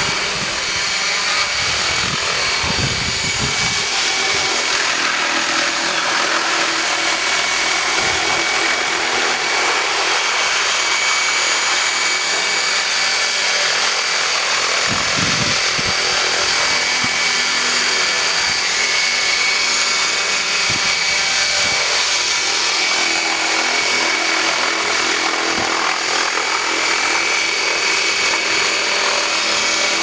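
Align 800-size RC helicopter in flight: a steady high whine from its motor and spinning rotors over a dense rush of blade noise, with a couple of brief low swells along the way.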